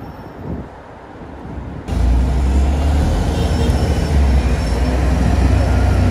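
Street traffic noise heard from a moving bicycle, with heavy low wind rumble on the microphone. It jumps suddenly louder about two seconds in.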